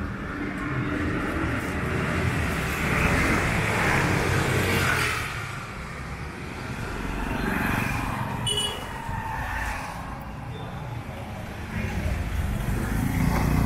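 Street traffic: a vehicle passes, loudest about three to five seconds in, with a brief high-pitched sound about eight seconds in and an engine growing louder near the end.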